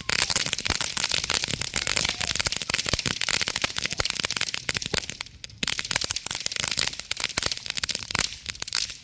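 Fireworks crackling rapidly: a dense, continuous run of sharp pops and cracks, many to the second, that thins briefly about five seconds in and again near the end.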